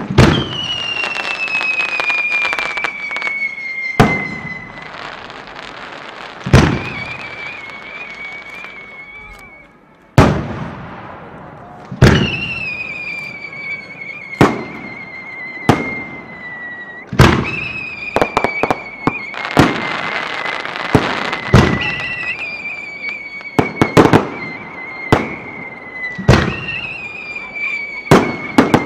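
Aerial fireworks heard from close to the launch tubes: sharp booms of shells launching and bursting every second or two, over a crackling hiss. A high whistle slowly sinks in pitch again and again as new shells go up.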